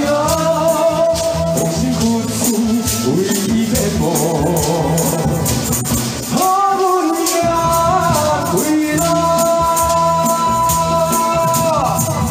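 Upbeat pop song played live: a man sings long held notes into a microphone over a backing track from a loudspeaker, with hand rattles shaking in time to the beat.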